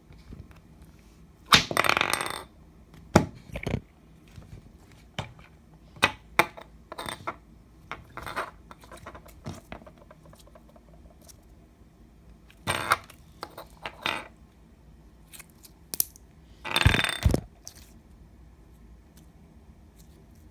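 Slime being squished and poked: irregular sharp clicks and pops with short squelching bursts, the longest ones about two seconds in and near the end.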